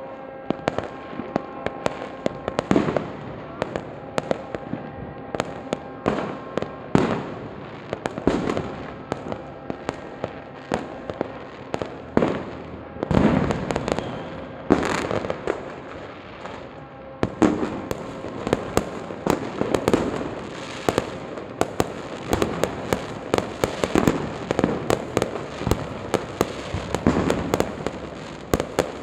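Many fireworks and firecrackers going off at once: a constant rattle of sharp bangs and pops, with louder booms now and then.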